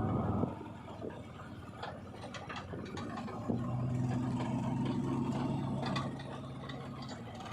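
Diesel engine of heavy machinery running, its steady drone growing louder about three and a half seconds in and easing near the end, with frequent short metallic clicks and clanks.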